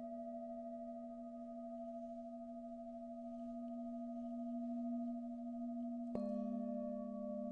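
Singing bowls ringing with steady, pure sustained tones. About six seconds in, a bowl is struck with a mallet and a new set of tones rings out, the lowest of them wavering.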